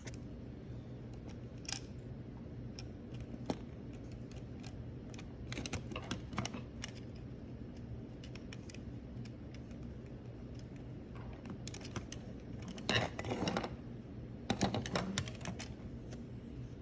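Small plastic parts of an Xbox One controller clicking and rattling as they are handled and snapped into the back cover, in scattered clicks with denser clusters, loudest about two-thirds of the way through and again near the end, over a low steady hum.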